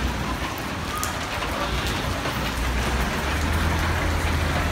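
Steady heavy rain falling on wet pavement, with a low rumble of street traffic underneath.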